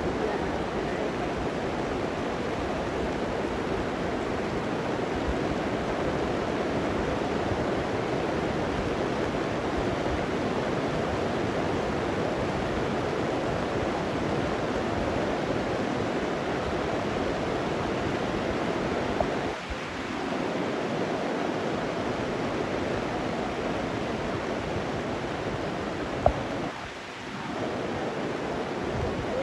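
Heavy rain pouring down as a steady, dense hiss. Two short sharp clicks break in, about two-thirds of the way through and again near the end, each followed by a brief lull.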